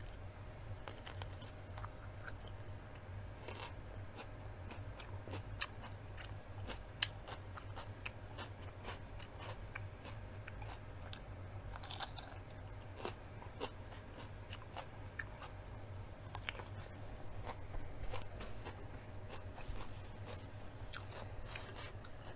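Close-miked crunchy chewing, starting with a crisp bite into a raw yellow mini sweet pepper, with many small sharp clicks spread through it.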